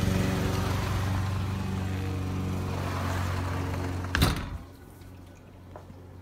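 Lawn mower engine running steadily, then a sliding glass door slides shut with a loud knock about four seconds in, after which the mower is much fainter.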